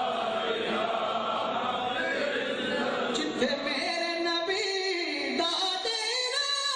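Unaccompanied naat, devotional Islamic singing by a male reciter. Several voices chant together in the first half, then a single male voice holds long notes that bend and waver.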